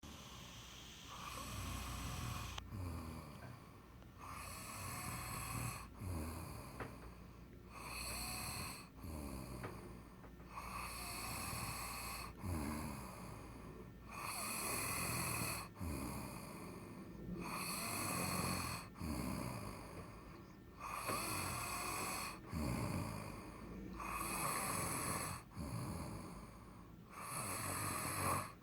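Someone snoring in a slow, steady rhythm, a rasping snore about every two seconds with quieter breaths between.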